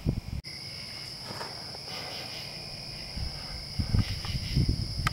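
Steady high-pitched trilling of a chorus of night insects, with a few low thumps on the microphone and a momentary dropout about half a second in.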